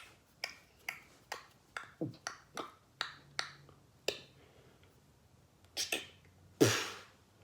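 A person imitating rifle shots with his mouth: a quick run of about a dozen sharp pops, roughly two a second, then after a pause a double pop and a louder, longer blast near the end.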